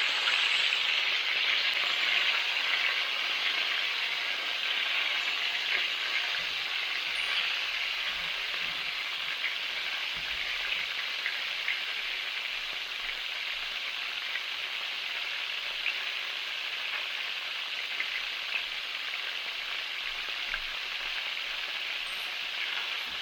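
Chicken frying in hot oil in a pan: a steady sizzle with many small scattered pops and crackles, a little louder in the first few seconds.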